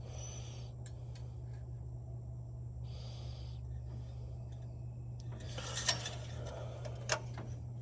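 Old Dodge engine idling low and steady, its carburettor idle set too low. A couple of light knocks come near the end.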